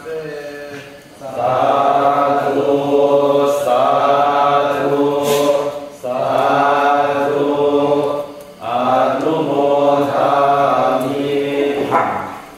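Thai Buddhist chanting: voices intoning a prayer in three long, sustained phrases with brief pauses for breath about six and eight and a half seconds in.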